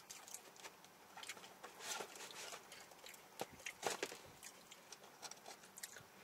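Quiet sounds of eating fried chicken: chewing and handling the food and its wrapping, a scatter of soft crackles and clicks, a little louder about two and four seconds in.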